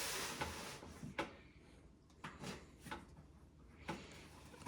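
A cardboard box being opened and handled: a faint rustling scrape in the first second, then a few light knocks and taps.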